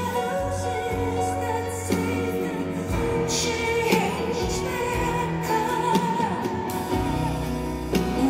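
Live music: a woman singing over a Bösendorfer grand piano, with a new piano chord struck about every second and the notes held between them.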